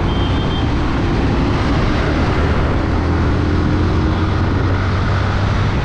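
Steady engine drone and road noise of a moving vehicle, a continuous low hum under a rushing hiss.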